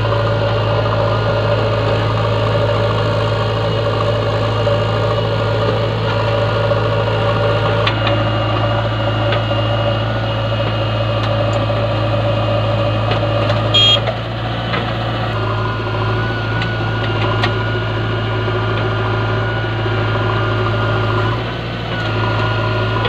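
Diesel engines of a JCB 3DX backhoe loader and a Sonalika tractor running steadily with a deep, even drone. There is a brief clatter a little past halfway, after which a faint high whine joins the drone.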